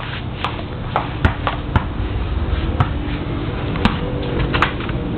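A handful of short, sharp knocks and taps at irregular intervals over steady background noise.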